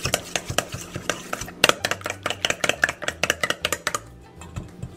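A spoon beating a raw egg in a stainless steel mixing bowl: rapid clicking and scraping of the spoon against the bowl, several strokes a second, stopping about four seconds in.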